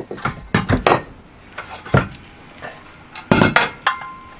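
Metal parts of a Lagun table mount, the bracket and its post, clinking and knocking together as they are picked up and handled. A series of sharp knocks comes at irregular intervals, the loudest cluster about three seconds in, and the last one leaves a brief ring.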